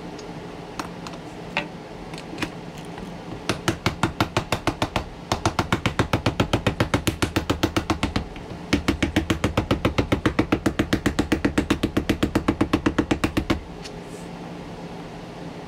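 Small hammer tapping rapidly on the rubber outsole of a handmade sneaker: a few single taps, then a fast, even run of about six blows a second for around ten seconds, with a brief pause in the middle.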